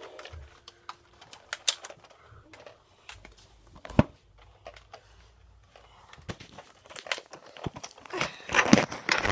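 Rustling and handling noise with scattered sharp clicks and knocks, one sharper knock about four seconds in. The rustling grows busier and louder near the end.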